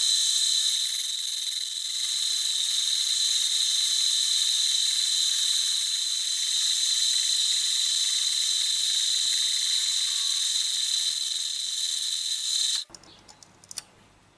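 Deckel FP1 milling machine running a slitting saw through a small metal bracket to cut a slot: a steady high-pitched whine with hiss, which stops abruptly near the end, followed by a few faint clicks.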